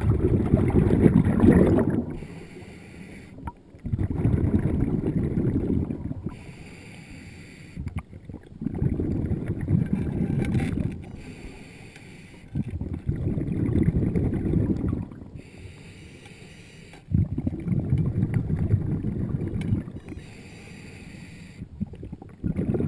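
Scuba diver breathing through a regulator, heard underwater: a loud rush of exhaled bubbles about every four seconds, each lasting about two seconds, five times. A quieter hiss of inhalation comes in between.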